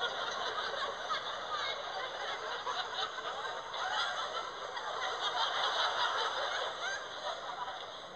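A crowd laughing: many people chuckling and laughing together in a dense, continuous wash, swelling a little around the middle.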